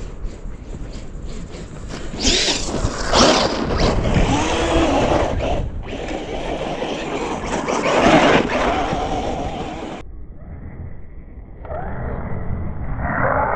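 RC truck's electric motor whining up and down in pitch as it is driven hard, mixed with rough tyre and chassis noise. The sound cuts abruptly about ten seconds in and resumes with more rising motor whine.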